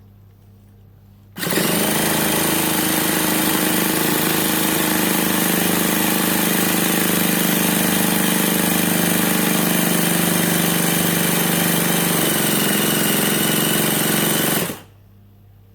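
Starter spinning a nitro RC car's engine, a steady mechanical buzz that starts suddenly about a second in, holds for about thirteen seconds and cuts off abruptly: cranking without the engine catching.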